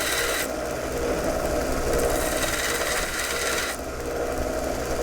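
Small power tool running steadily and grinding or filing on metal, its pitch and grit changing as the contact shifts about half a second in and again near four seconds.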